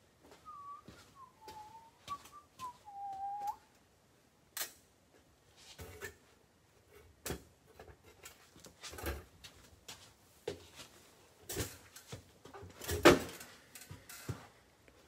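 A short run of five whistled notes, each sliding down in pitch, in the first few seconds. Then scattered clicks and knocks of things being handled, the loudest about thirteen seconds in.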